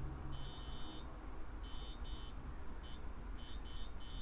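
Digital multimeter in continuity mode beeping on and off as its probes touch pads on a circuit board: a high, steady tone, some beeps brief and some lasting most of a second. Each beep signals a connection between the probed points, which here turn out to be on ground.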